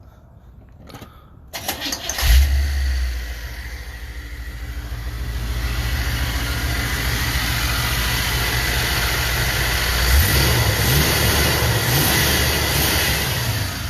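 Carbureted G-body car engine being started: a brief crank about a second and a half in, catching with a loud burst, then settling into a steady idle that wavers a little near the end. The engine runs after a misfire repair in which the ignition module and distributor parts were replaced.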